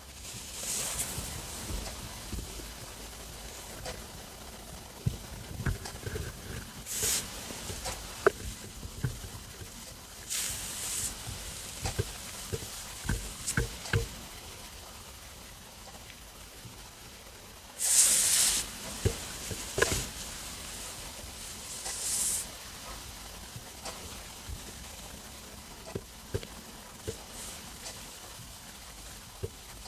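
Stomach rumbling and gurgling while digesting after a meal: scattered low gurgles and small pops, with several short hissing bursts, the loudest about 18 seconds in.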